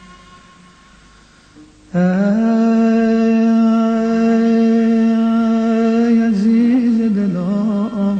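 A male voice singing without words. After a soft lull of about two seconds it slides up into a long, steady held note, then breaks into quick wavering ornaments near the end.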